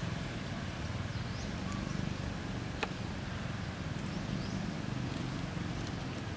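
Outdoor ambience: a steady low rumble, with a few faint high chirps and a single sharp click about three seconds in.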